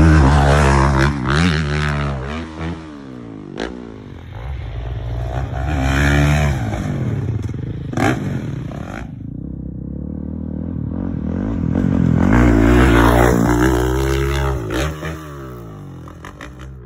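Dirt bike engines revving hard up to jumps and passing by in three runs, the pitch rising and falling with the throttle, with a few sharp knocks in between.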